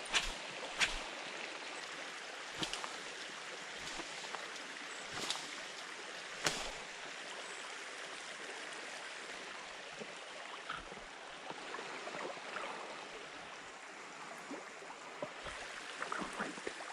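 Creek water running steadily, with scattered sharp clicks and taps, most of them in the first seven seconds.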